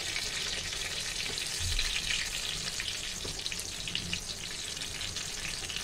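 Jackfruit pakodas deep-frying in hot oil in a kadhai: a steady sizzle with quick, dense crackling.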